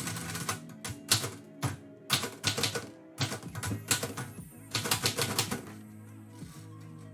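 Typewriter keys striking in quick bursts of clatter with short pauses between them, over lo-fi background music.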